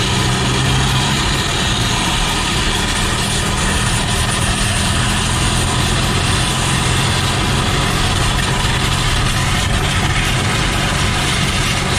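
Steady, loud scraping and rushing of an upturned car bonnet being dragged along asphalt on a tow strap as a sled, mixed with the towing VW Lupo's engine running and its road noise.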